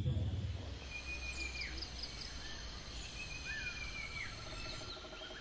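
Night-time outdoor ambience of insects and small animals calling over a low steady hum. Short chirping calls slide down in pitch twice, and from about four seconds in a rapid pulsing call joins them.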